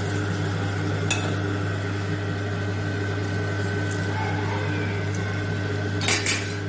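Batter balls deep-frying in hot oil in a steel kadhai, a steady sizzle over a steady low hum. There is a click about a second in and a short clatter near the end.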